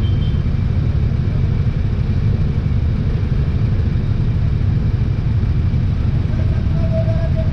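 Motorcycles idling in stopped city traffic: a steady, low engine rumble, with a faint held tone for about a second near the end.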